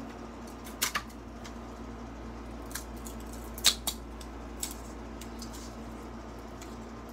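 A handful of sharp plastic clicks and snaps as a 3D-printed articulated lizard is pulled off a textured steel print bed, its jointed segments clacking against each other; the loudest snap comes about three and a half seconds in. A steady hum runs underneath.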